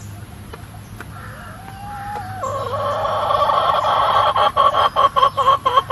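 Hen clucking: a faint call early, then a loud, fast run of repeated clucks that grows louder.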